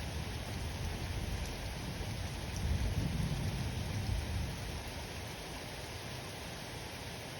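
Steady rain falling during a thunderstorm, with a low rumble of distant thunder swelling up about three seconds in and dying away a second or two later.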